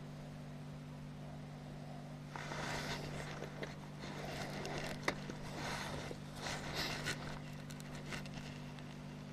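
Scraping and rustling as a baitcasting fishing rod and reel are handled, with a sharp click about five seconds in, over a steady low hum.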